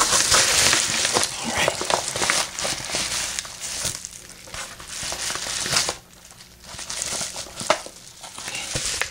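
Paper packaging crinkling and rustling as hands handle a torn-open padded mailer and pull out its paper-wrapped contents, with many small crackles. The rustling is dense for the first several seconds, then drops to quieter, scattered rustles and clicks.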